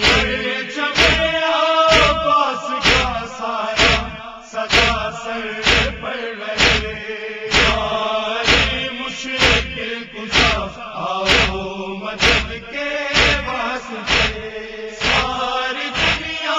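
A chorus of voices chanting a Shia noha refrain over matam: hands beating on chests in unison, in an even rhythm of about one strike a second.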